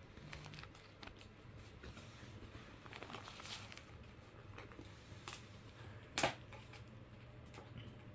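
Faint, scattered light taps and rustles of cats pawing at and playing with toys, with one sharper tap about six seconds in.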